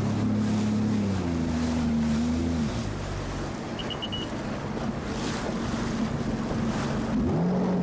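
Sea-Doo GTI jet ski's three-cylinder four-stroke Rotax engine running steadily, then easing off about three seconds in, leaving mostly water spray and wind noise on the microphone, before it revs up again with a rising pitch near the end.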